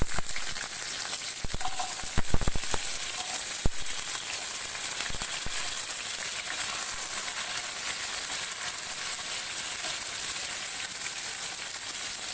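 Whole sambar onions (small shallots) sizzling in hot groundnut oil with mustard seeds in a frying pan, stirred with a wooden spatula. A few sharp knocks and pops in the first four seconds, then a steady high sizzle.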